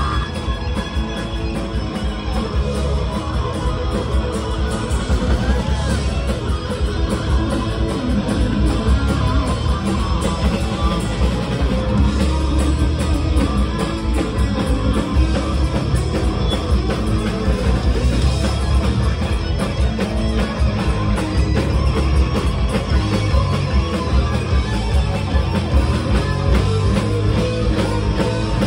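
Live heavy metal band playing loud: distorted electric guitars, bass guitar and rapid drums, heard from the audience in a club.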